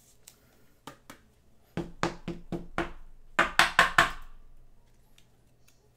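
Hands handling trading cards on a table: a quick run of about a dozen taps and knocks, loudest a little past halfway.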